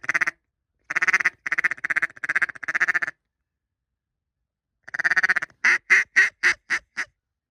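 Duck call blown close by: two fast runs of quacks, then a cadence of about six separate quacks, each a little softer than the last.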